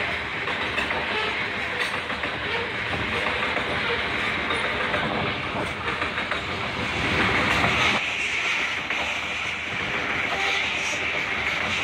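Covered hopper cars of a freight train rolling past close by, their wheels running steadily on the rails. The noise swells a little about seven seconds in.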